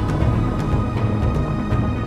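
Background music with a steady beat over held chords.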